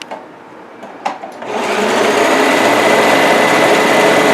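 Electric sewing machine stitching. Two short clicks come first, then the motor starts about a second and a half in and runs steadily.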